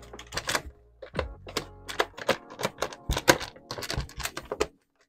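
Irregular clicking and rattling from hands and a small tool working the screws of a Stihl MS 271 Farm Boss chainsaw's plastic top cover, with background music in the first half.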